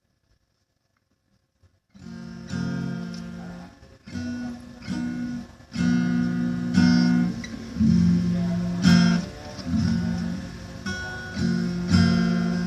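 Acoustic guitar playing chords. It comes in about two seconds in, after near silence.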